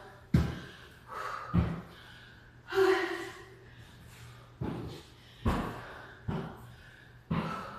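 Footsteps of a person in sneakers climbing a flight of stairs, one footfall about every second.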